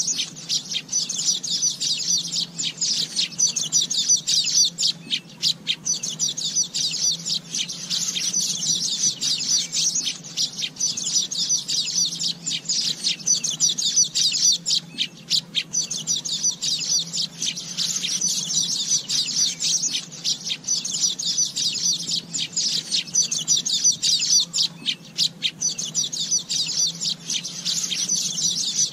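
Asian golden weavers calling: a dense, continuous chorus of high, rapid chattering and clicking notes, over a faint low hum.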